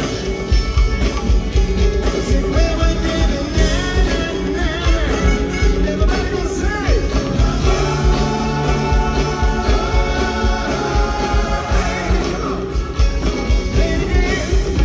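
Live rock band playing in an arena: electric guitars and drum kit with a male lead vocal, singing in the first half, then held chords under the guitars.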